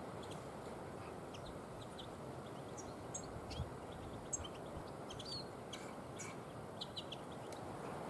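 Small songbirds giving short, scattered high chirps and call notes, several in quick succession around the middle, over faint steady wind noise.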